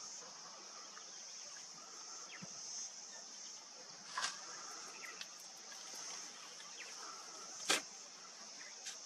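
Steady high-pitched chirring of insects in the bush, with a few sharp clicks or knocks, the loudest one shortly before the end.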